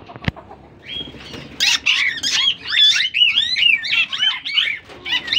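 Parakeets calling in a fast run of shrill, rising-and-falling squawks that start about a second in and keep going; a single sharp click just before.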